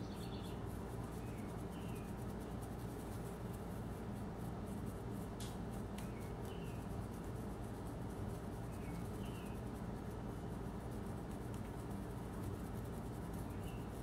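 Soft scratching of a small paintbrush dabbing and swirling cornstarch into the rose cavity of a silicone decor mould, over a steady low room hum. A few faint, short high chirps come and go.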